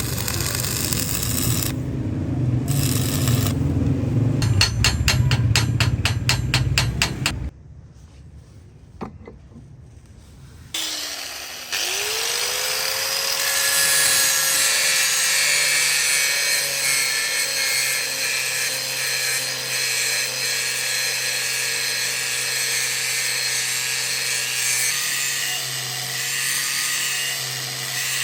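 Power tools working metal. First comes a loud rapid regular clatter, which breaks off into a few seconds of quiet. About eleven seconds in, an electric grinder spins up to a steady whine and runs on with a hissing grind.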